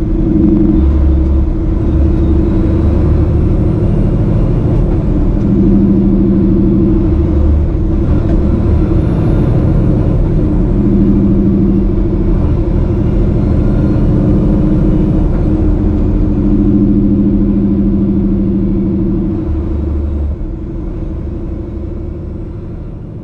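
Outro music: deep, held synth drones and bass notes that shift every few seconds, with soft sweeping swells, fading out near the end.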